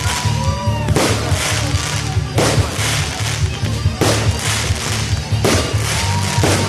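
Loud music with a pulsing bass beat, with fireworks bursting about every second and a half, five bangs in all.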